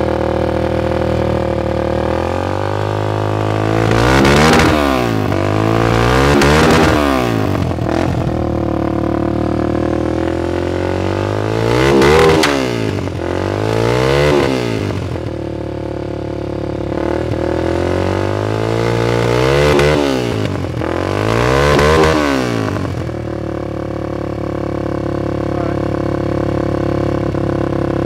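Yamaha Raptor 250 ATV's single-cylinder four-stroke engine on an AC Racing full-system exhaust, idling and revved six times in three pairs of quick blips, each falling back to idle. The engine is not fully warmed up.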